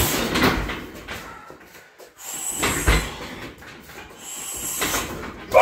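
Shin roundhouse kicks thudding into a 60 kg Everlast heavy bag, a few heavy strikes about two seconds apart.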